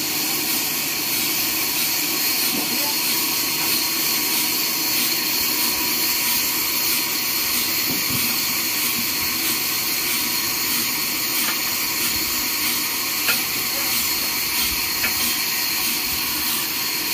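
Horizontal bandsaw machine running, a steady loud hiss with a faint high whine, with a few light knocks in the second half.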